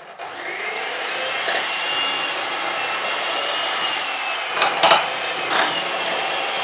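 Electric hand mixer with dough hooks winding up to speed and then running steadily, kneading yeast dough in a stainless steel pot. A few sharp knocks come about five seconds in.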